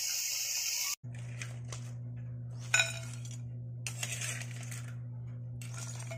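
Food sizzling in a wok for about a second, then it cuts off. After that a metal spoon scrapes the wok and clinks against a glass plate as the stir-fried fiddler crabs are dished out. A single sharp ringing clink a little under three seconds in is the loudest sound, over a steady low hum.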